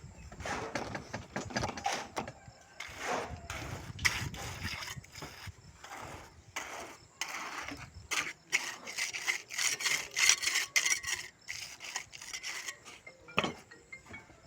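Irregular scraping and rubbing strokes, which come faster and denser in the second half.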